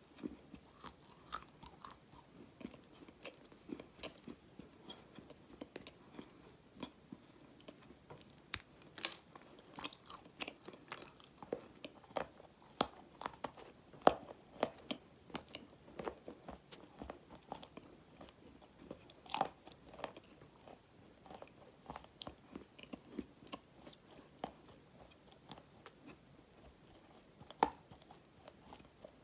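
Close-up chewing and biting of dry black clay: irregular sharp crunches and crackles, with a few louder cracks spread through.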